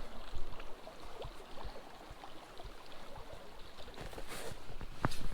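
Small creek flowing, an even rush of water, with scattered small clicks and knocks over it.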